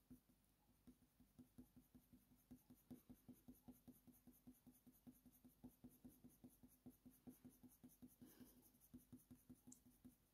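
Faint scratching of a Faber-Castell Polychromos colour pencil on hot-press watercolour paper. It makes short, quick strokes at about three a second, layering fur.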